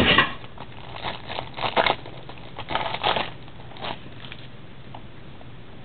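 Clear plastic wrapping crinkling and tearing in a string of short rustling bursts as a sealed trading-card box is opened, after a sharp knock at the very start.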